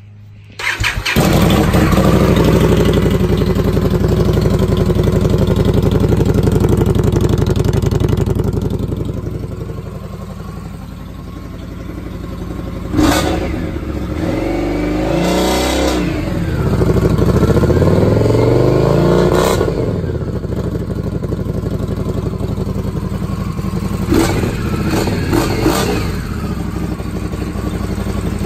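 Victory Octane's V-twin, with its Stage 2 2-into-1 exhaust de-baffled, starting about half a second in and running pretty loud at a fast idle, then settling lower. It is revved in several throttle blips that rise and fall in pitch, with a few quick, sharp blips near the end.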